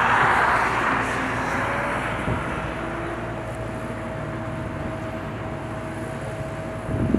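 Jet airliner's engine noise fading steadily as the aircraft moves away, leaving a low steady rumble with a thin steady whine.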